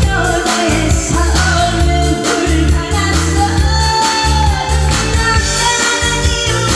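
A singer performing a pop-style song over amplified backing music with a steady bass beat, holding long wavering notes.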